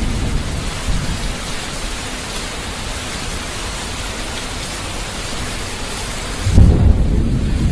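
Thunderstorm sound effect: steady hiss of rain, then a loud low rumble of thunder starts near the end.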